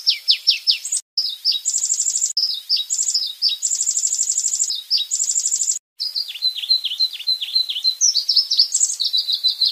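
White-rumped shama (murai batu) singing its rapid-fire 'tembakan' song: quick runs of downward-sweeping whistles alternating with high, fast buzzy trills. The song breaks off briefly twice, about a second in and near six seconds.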